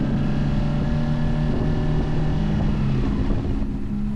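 Motorcycle engine running while riding, likely the Honda CBR sport bike. Its note holds steady and then shifts up and down in pitch a few times.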